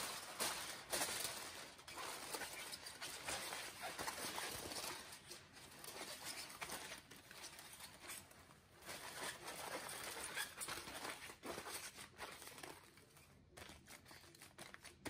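Aluminum foil crinkling and crackling in irregular rustles as it is folded and pressed tightly around a brisket by gloved hands, dying down near the end.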